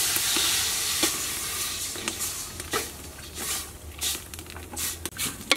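Water poured from a plastic jug into a steel cooking pot, a splashing rush that is loudest about the first second and fades away by about two seconds in. A metal ladle then stirs the pot, clinking and knocking against it several times.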